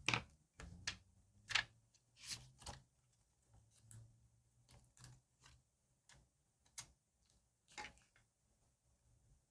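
Irregular light ticks and taps of stickers and paper pieces being handled and pressed onto a journal page, about a dozen small clicks, the loudest right at the start and about one and a half seconds in.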